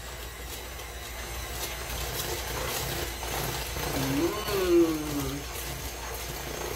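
Handheld electric mixer running steadily, beating thick batter in a bowl. About four seconds in, a dog gives one howl that rises and then falls in pitch, louder than the mixer.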